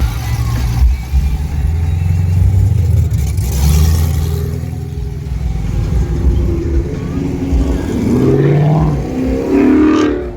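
A motor vehicle's engine running under way, its pitch and level rising and falling as it accelerates.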